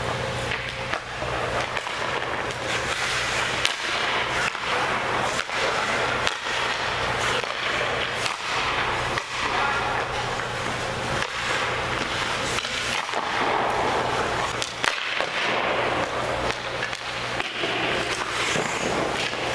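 Hockey skate blades scraping and carving on ice, with repeated sharp clacks of pucks being shot and striking sticks and goalie pads, over a steady low hum.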